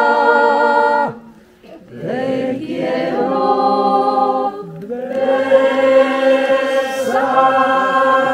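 A mixed group of men and women singing a folk song in Aragonese together, unaccompanied, in long held notes. It breaks off briefly for breath about a second in, then goes on.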